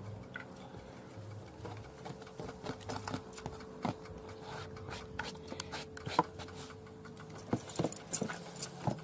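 Chopped garlic slid off a plastic cutting board onto minced meat, then hands kneading the raw mince in a bowl: irregular soft wet squelches and clicks, coming thicker and louder near the end.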